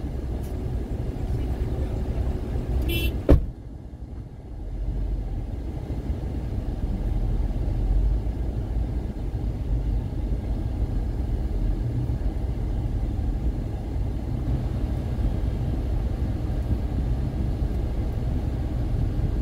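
Steady low rumble of a car driving, heard from inside. A single sharp click about three seconds in, after which the rumble drops briefly and then builds again.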